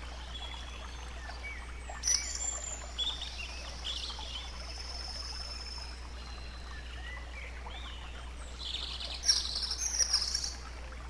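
Nature-soundscape track of songbirds singing over gently lapping, babbling stream water, with louder bursts of high chirping about two seconds in and again near the end.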